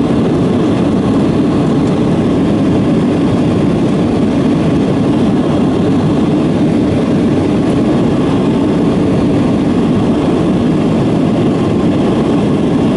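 Steady airliner cabin noise, the engines and airflow making an even, unchanging drone.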